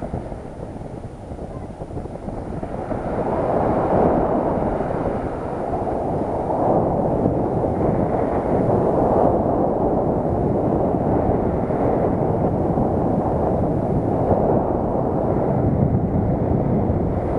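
Wind rushing over the microphone of a camera carried by a paraglider in flight on the descent to land. It is quieter for the first couple of seconds, then louder, swelling and easing every few seconds.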